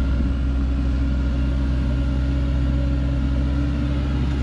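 Diesel engine of a log truck loaded with acacia logs, running steadily under load as it climbs a steep dirt slope.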